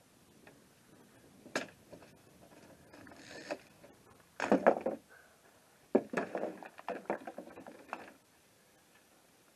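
Wood and tools being handled in a woodworking job: a sharp click, a short scraping, then two bursts of clattering knocks, the second lasting about two seconds.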